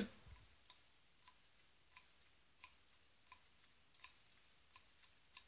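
A CK One bottle's spray pump pressed over and over through a syringe fitted on its nozzle, giving faint short clicks at about one and a half a second; each stroke pumps fragrance into the syringe to decant it.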